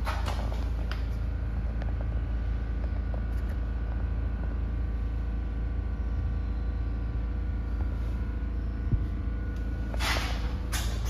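Steady low rumble with a faint hum over it. Brief rustling handling noises come at the start and again about ten seconds in, as the phone is moved.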